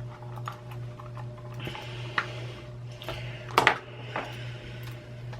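Small hard-plastic clicks and taps from a computer mouse being pried and worked apart by hand, scattered and irregular, with a sharper knock about three and a half seconds in. A steady low hum runs underneath.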